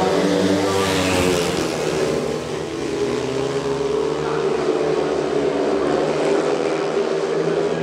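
Several 500 cc single-cylinder speedway motorcycles racing together, their engine notes rising and falling as they run around the track.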